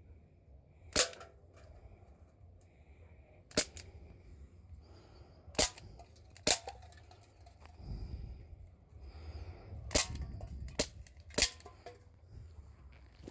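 CO2 BB gun firing about seven sharp shots at uneven intervals, with heavy breathing between them.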